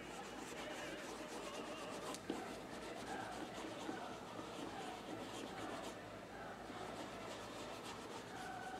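Cloth wrapped around fingertips rubbing cream polish into a leather shoe in small circular strokes: a faint, even scuffing.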